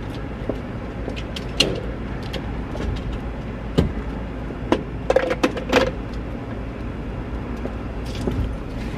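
Inside a parked car's cabin: a steady low rumble with a string of sharp clicks and clunks, most of them bunched together in the middle, from the fuel nozzle and filler cap being handled at the pump outside.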